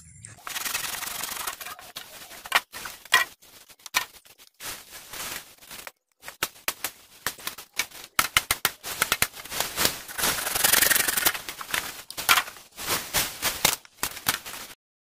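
Dense, irregular crackling and rustling of dry bamboo and dead leaves being handled and trodden, full of sharp clicks with short pauses, stopping abruptly near the end.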